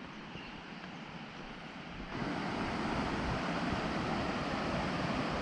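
Steady rush of falling water from a waterfall, growing louder about two seconds in.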